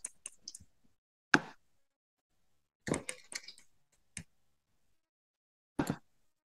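Scattered computer keyboard keystrokes and mouse clicks, with a quick run of several keystrokes about three seconds in and a single click near the end.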